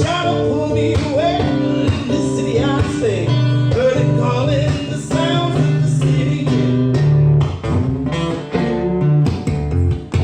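Live blues-style band music: a lead guitar playing bending notes over a steady bass line and rhythm guitar.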